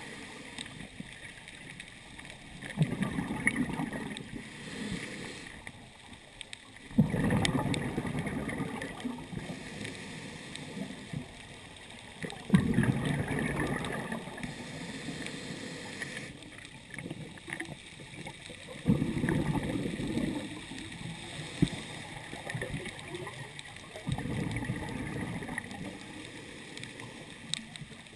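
Scuba regulator exhaust bubbles from a diver's breathing. They come in about five bursts of roughly two seconds each, one every five seconds or so, over a steady hiss, heard underwater through a camera's waterproof housing.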